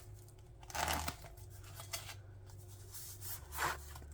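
Packing material rustling and rubbing as stained glass sheets are handled and taken out of their box, with a louder rustle about a second in and another near the end.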